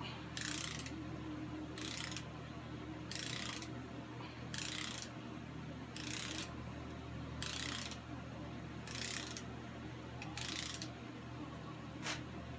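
Ratcheting torque wrench tightening intake manifold bolts: short bursts of ratchet clicking, about one stroke every second and a half, some nine strokes in all, with a single sharper click near the end.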